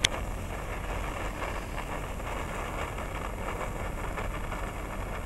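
Senko hanabi (Japanese hand-held sparklers) crackling with a fast, fine spitting of sparks that thins out near the end, over a steady low rumble. A sharp click comes right at the start.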